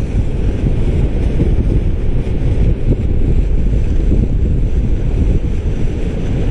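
Wind buffeting the microphone: a loud, steady, low rumble with no break.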